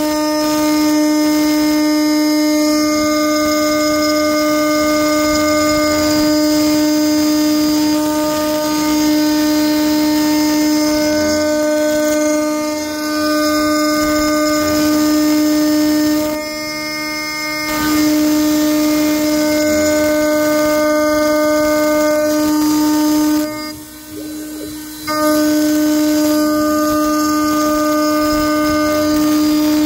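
CNC router spindle at about 18,000 RPM driving a carbide end mill through aluminium: a loud, steady, high-pitched machining whine with a heavy chip load. The whine breaks off briefly twice, about two-thirds of the way in and again near the end.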